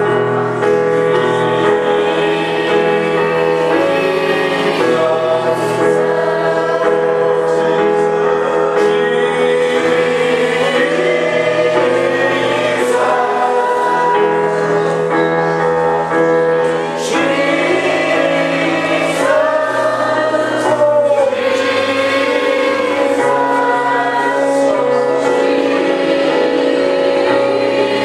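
Gospel choir singing over held bass notes.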